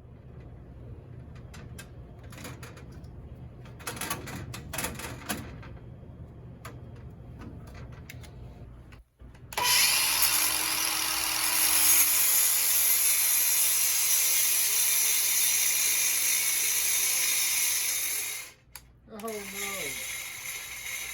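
Mechanical clicking and rattling over a low hum, then a cordless power tool running loudly and steadily with a hissing edge for about nine seconds before it stops abruptly.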